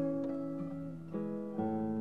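Acoustic guitar music, with the chord changing about a second in.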